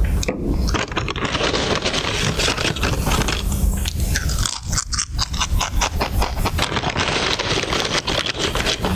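Loud, crunchy chewing and biting of a snack: a dense, rapid run of crackling crunches, with a short pause about halfway through.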